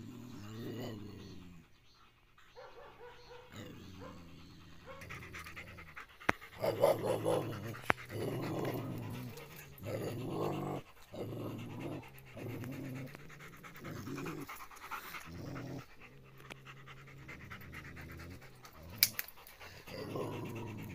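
German Shepherd panting in repeated runs of breaths, with a few sharp clicks, the loudest near the end.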